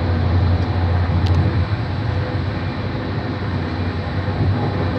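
Train running, a steady rumble whose low hum eases off about a second and a half in, with a single click.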